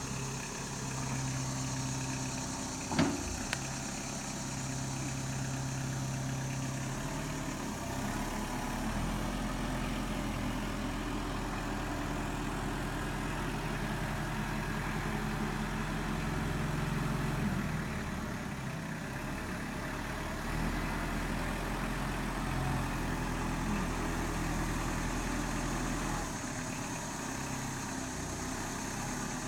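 Kubota M59 backhoe's diesel engine running steadily, its note shifting now and then as the machine works. A single sharp knock about three seconds in.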